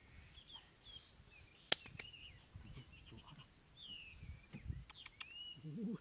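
Birds chirping and calling in short twittering notes in the background, with one sharp click just under two seconds in. Soft low bumps and scraping come from a bamboo-and-can trap being set down into a hole in the dirt.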